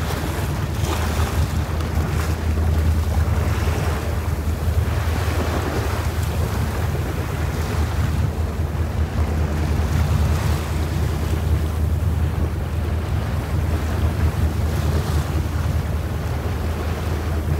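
A boat's engine running steadily with a low drone, under wind buffeting the microphone and water sloshing against the hull.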